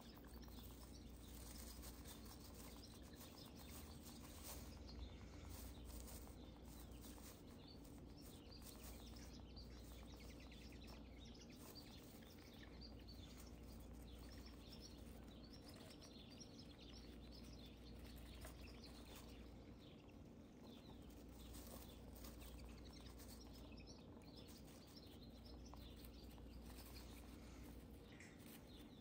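Faint, irregular rustling and crackling of wood-shaving bedding as a hamster moves about its cage, over a low steady hum.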